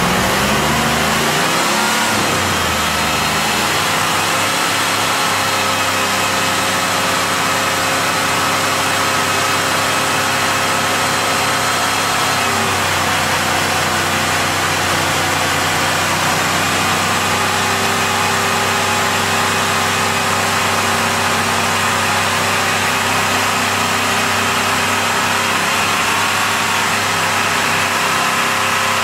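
Two LT1 V8 engines of a Camaro Z28 and a Pontiac Trans Am running with their oil drained out. They rev up right after starting, then hold at a steady raised speed, with the pitch shifting about twelve and again about seventeen seconds in.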